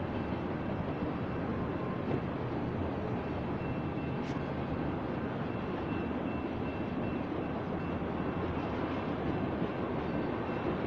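BNSF grain train's covered hopper cars rolling past on the rails: a steady noise of steel wheels on track.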